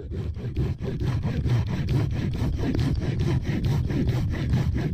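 Silky Gomboy folding saw cutting through a dead, lichen-covered branch in quick, even back-and-forth strokes.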